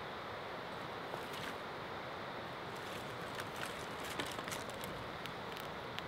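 Steady rush of a mountain stream, with a few faint, sharp clicks scattered through the middle.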